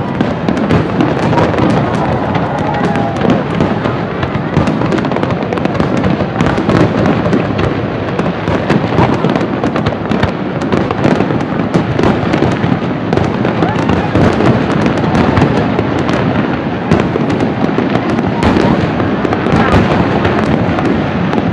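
Aerial fireworks display: a dense, unbroken barrage of shell bursts and crackling, with sharp reports following one another too fast to count and no pause.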